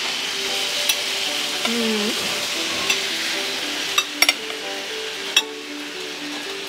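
Fork and knife clicking against a plate about half a dozen times, over a steady hiss and soft background music of short stepping notes.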